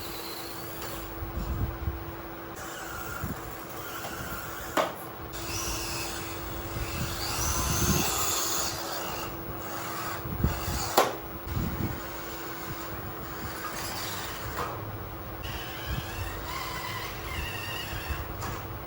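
Small RC construction vehicles scraping and rubbing through loose material, with a faint steady hum and two sharp knocks.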